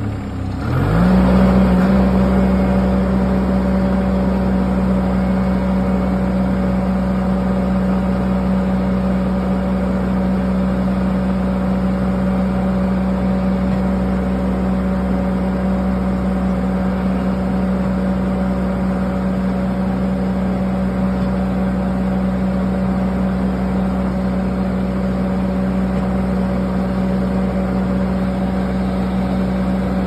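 Mini skid steer engine running steadily at high throttle while the machine pushes a land leveler attachment through soil. Its pitch dips and climbs back within the first second, then holds level.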